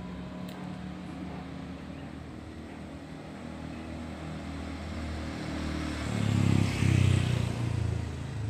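Motor scooter engine approaching and passing close by, growing louder to a peak with tyre hiss about six to seven seconds in, then fading.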